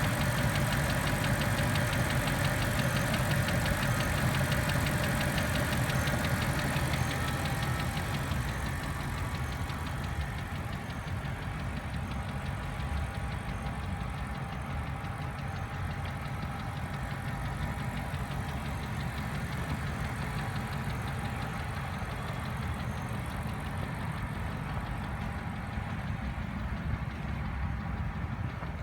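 BMW N62 4.4-litre V8 engine idling with a knock, which the owner takes for an engine fault. It runs a little louder for the first several seconds, then settles to a steady, lower level.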